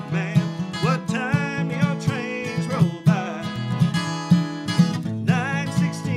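Acoustic guitar played at a steady beat in an old-time country style, with low bass notes about twice a second under the strummed chords.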